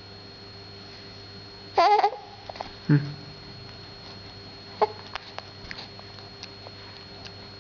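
A young baby babbling: a high, wavering coo about two seconds in, a short loud grunt-like call about a second later, then a brief squeak and a few small clicks.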